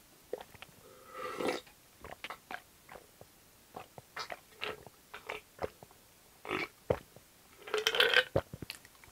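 Close-miked mouth sounds of a person drinking an iced drink from a glass jar: a string of short gulps and swallowing clicks, then a loud voiced exhale about eight seconds in.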